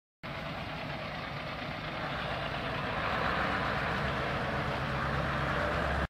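Farm tractor engine running steadily, a low rumble with a broad hiss, growing slightly louder over the first few seconds. It comes in suddenly and cuts off abruptly at the end.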